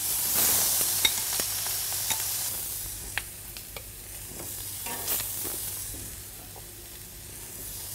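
Marinated quail breasts sizzling on a hot barbecue grill, loudest in the first seconds and fading away, with a few light clicks.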